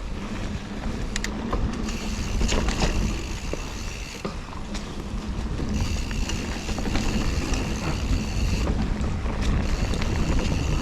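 Full-suspension mountain bike descending a dirt trail: wind rushing over the helmet camera and tyres rumbling over the ground, with rattles and knocks over bumps. A high buzz from the rear hub's freewheel comes in twice while coasting.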